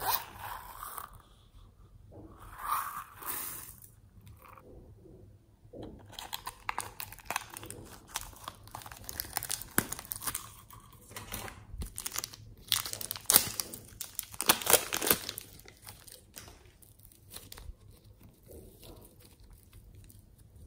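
A zipper on a silicone pouch pulled open in two short strokes near the start, then a long stretch of crackling, crinkling handling noises from about six seconds in, which die down near the end.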